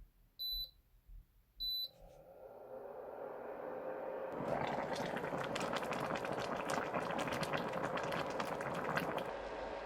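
Two short electronic beeps from a tabletop cooker, then a pot of gamjatang heating: a hiss that swells and breaks into a bubbling boil with many small crackles and pops, settling into a steady simmer near the end.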